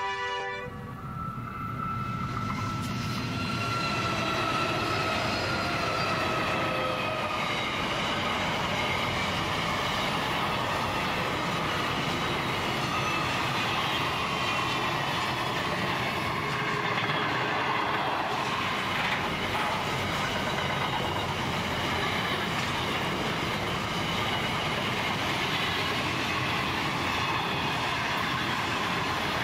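Diesel-hauled container freight train passing close by. In the first few seconds the three Pacific National NR class GE diesel-electric locomotives go by, their engine tones sliding slightly down in pitch. Then a long string of loaded container wagons rolls past with a steady wheel-on-rail rumble and clatter, under a thin, high wheel squeal.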